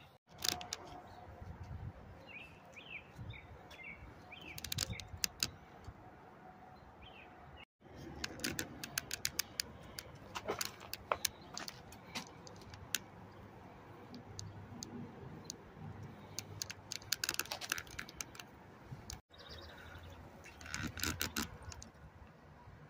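Faint, irregular light clicks and rattles of handling, with a few bird chirps in the first seconds.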